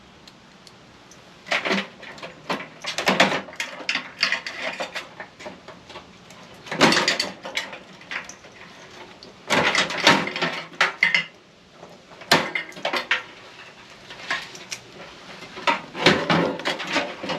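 Metal clinking and scraping from hand work on a gutted microwave's parts with a knife, in irregular clusters of clicks and scrapes with short pauses between.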